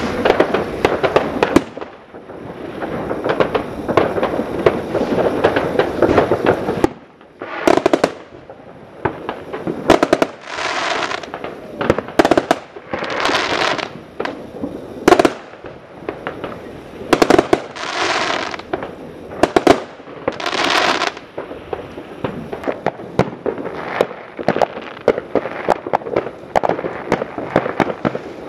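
Many fireworks going off at once: a dense run of bangs and crackling for about the first seven seconds, then scattered bangs with several hisses of about a second each.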